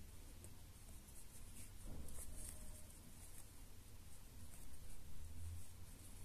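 Faint scratching and rustling of a metal crochet hook pulling cotton yarn through stitches while popcorn stitches are worked, with soft handling of the crocheted piece.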